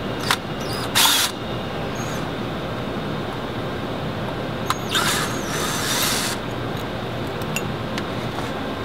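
Small metal parts and hand tools being handled as the junction box cover comes off a magnetic particle brake: a sharp click near the start, a louder clatter about a second in, and a longer scraping rasp around five to six seconds in, with a few light ticks after, over steady room noise.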